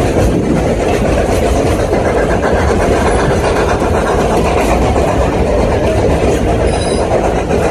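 Narrow-gauge passenger train running along the track: a steady, loud rolling noise of wheels on rails that carries on without a break.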